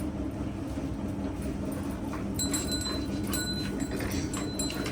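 Metal clinking: several short, ringing clinks at irregular intervals in the second half, over a steady low rumble.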